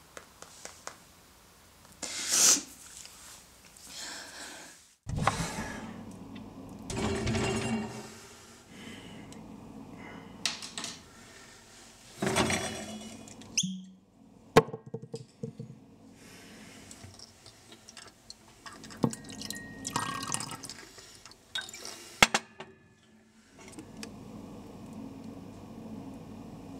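Drink being poured into a glass and glassware handled: several separate bursts of pouring liquid and a few sharp glass clinks.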